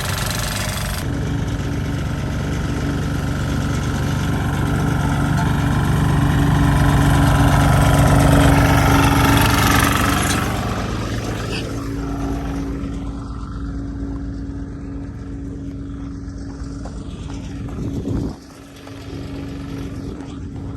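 Heavy equipment engine running steadily under load, building to its loudest about eight seconds in and easing off after ten, with a sudden drop in level near the end.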